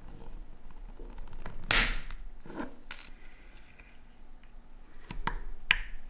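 Small metal parts being handled on a workbench: one loud short scraping rasp about two seconds in, then a few light clicks, and two sharp clicks near the end.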